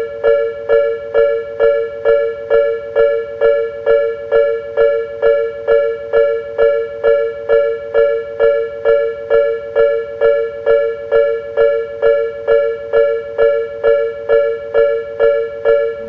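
Japanese railway level-crossing warning bell ringing its electronic "kan-kan": two pitches alternating at about two strikes a second, the signal that a train is coming.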